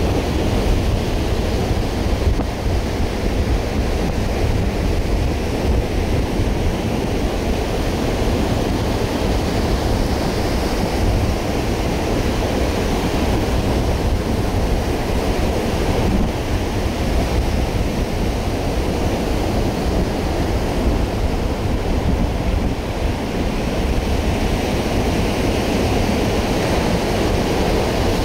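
Ocean surf washing steadily onto a sandy beach, with wind noise on the microphone.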